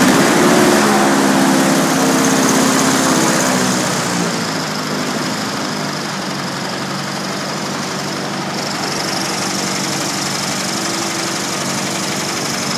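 A 15 hp small horizontal-shaft engine driving a 38-inch airboat propeller, running on its first fire-up. It runs harder and louder for the first few seconds, then eases back to a steadier, lower speed.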